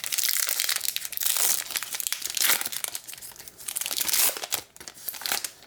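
Baseball card pack wrapper being torn open and crinkled: a run of crackly rustling that comes in surges and stops near the end.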